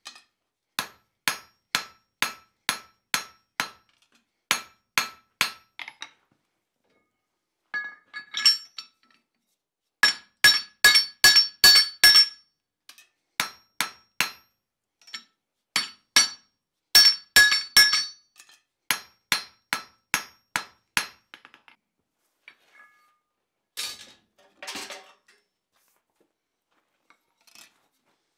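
Blacksmith's hand hammer striking a red-hot steel bar on an anvil, in runs of evenly spaced blows, each with a short metallic ring. The runs are broken by pauses, and the blows come quicker, about four a second, in two short runs near the middle.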